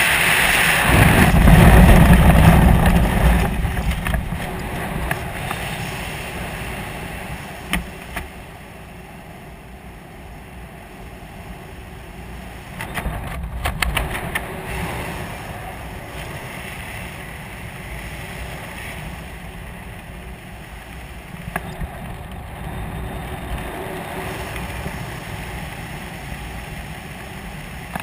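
Wind rushing over a skydiver's helmet camera: loud in the first three seconds or so of freefall, then dying away as the parachute opens to a softer steady rush under canopy, with a few brief clicks.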